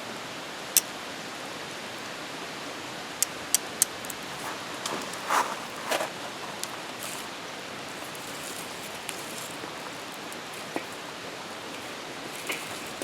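Wood campfire crackling: a few sharp pops, three of them close together, over a steady hiss.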